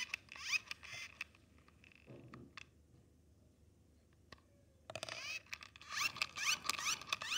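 Plastic squeaking and scraping in quick, short strokes as hands twist and work at the cap of a bubble-solution bottle. The strokes stop for about two seconds in the middle, with a few small clicks, then start again.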